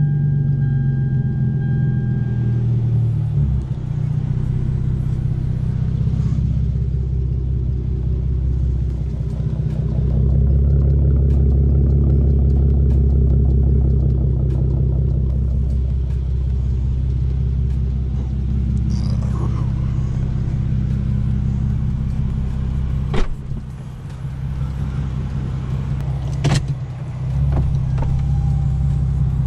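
2013 Hyundai Genesis Coupe 3.8's V6 idling steadily through an ISR race exhaust. Two sharp knocks come in the last few seconds.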